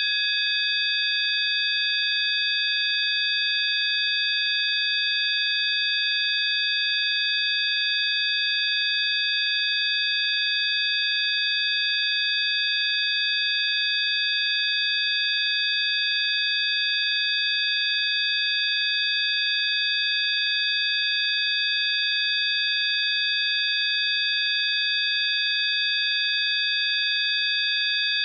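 Several high-pitched electronic sine tones sounding together as one steady, unchanging chord, with no rise, fall or pulse.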